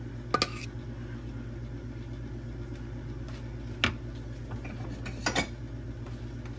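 A kitchen utensil clinking against a mixing bowl: a few sharp knocks, a double one about half a second in, one near four seconds and a close pair near the end, over a steady low hum.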